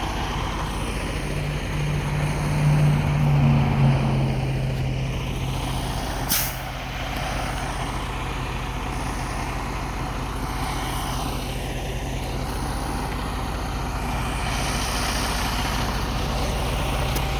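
Heavy diesel truck engine running with a steady low drone, louder for a couple of seconds near the start. About six seconds in comes a single short, sharp hiss of air brakes releasing.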